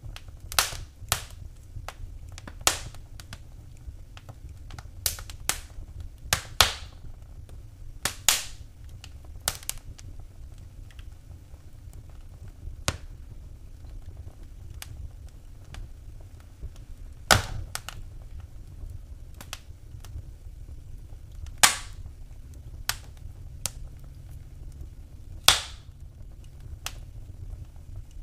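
Wood fire in a fireplace crackling, with irregular sharp pops over a steady low rumble of burning. The pops come thickly at first and then more sparsely, with three of the loudest spread through the second half.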